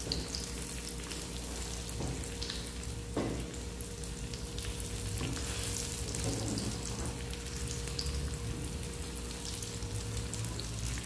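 Breaded chicken nuggets sizzling and crackling steadily in hot oil in a frying pan. A metal spatula scrapes and taps against the pan as the pieces are turned over, with a couple of sharp taps about two and three seconds in.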